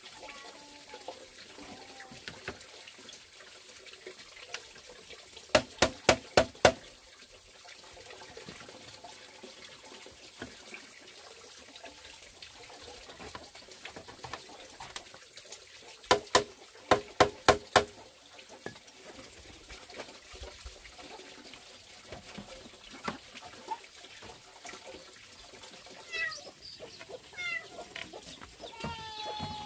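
Bamboo posts being pounded into place, in two quick series of five or six hollow, ringing knocks about ten seconds apart. Chickens cluck near the end.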